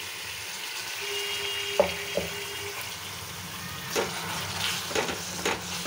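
Wet onion paste scraped from a steel mixer jar into a pan of drumstick pods frying in oil, over a steady sizzle. Sharp metal knocks sound as the jar and then a spoon strike the pan, two close together near two seconds in and several more toward the end as the paste is stirred in.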